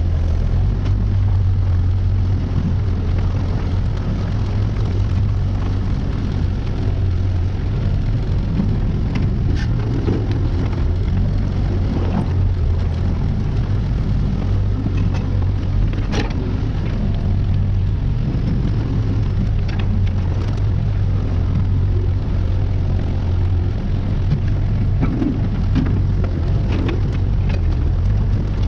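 Engine of a compact earthmoving machine running steadily under work, with a few sharp clanks from the machine working.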